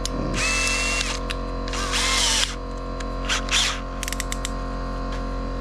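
Cordless drill running in two short bursts of about half a second, each with a steady whine, then two quick blips and a fast run of clicks a little later. The drill is being readied to open up a fuel pump hanger's outlet to the size of a new fitting's thread.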